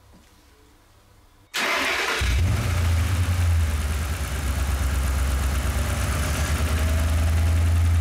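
Car engine started about a second and a half in: a brief crank, then it catches and settles into a steady idle. Cylinder 4's ignition coil is firing into a spark-gap tester set to 2 cm instead of into its spark plug, so that cylinder is not firing.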